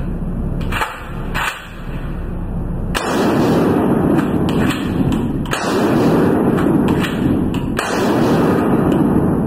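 Gunshots: three quick shots in the first second and a half, then three more spaced two to three seconds apart. Each is followed by a long rumbling echo.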